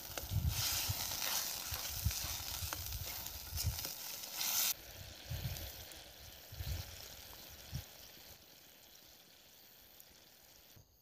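Chili paneer sizzling in a hot pan just after a little water is added: a loud hiss that drops sharply about five seconds in and fades to a quieter sizzle, with a few low bumps under it.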